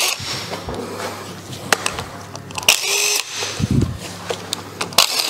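Cordless impact wrench working the cover bolts of a rear differential, running in a short whining burst about three seconds in, with sharp metallic clicks and clinks of the tool and bolts around it.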